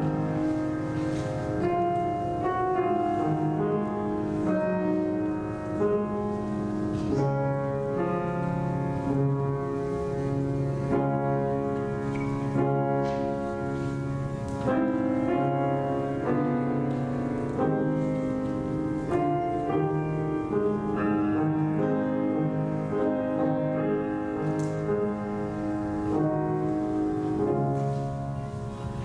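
Piano music, chords over a bass line that moves every second or so, getting quieter near the end.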